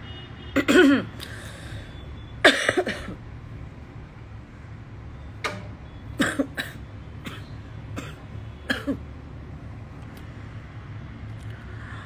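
A woman coughing: two hard coughs in the first three seconds, then a string of shorter coughs and throat clearing.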